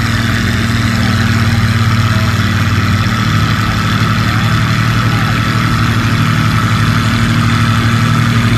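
Cockshutt 50 tractor's engine running steadily under load as it pulls the sled, a loud even engine note with a fast, regular pulse.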